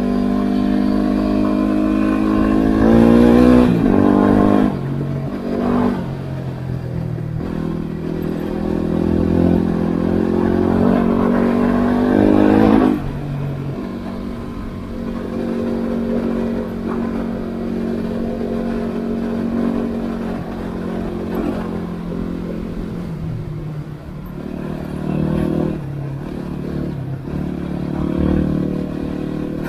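Yamaha WR250R's 250 cc single-cylinder four-stroke engine running under way: the revs climb and drop off sharply twice in the first half, then it runs at lower, steadier revs with small rises and falls of the throttle.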